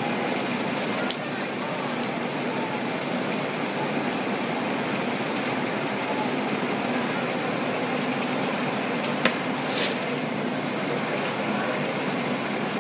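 Steady din of fire trucks' engines and pumps running at a fire scene, with a couple of sharp clicks and a short hiss about nine to ten seconds in.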